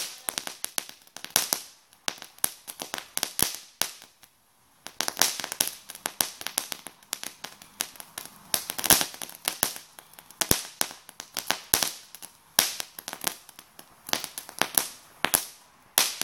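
Ground firework spraying sparks and crackling: a rapid, irregular run of sharp cracks and pops. It goes almost quiet for about a second around four seconds in, then crackles on.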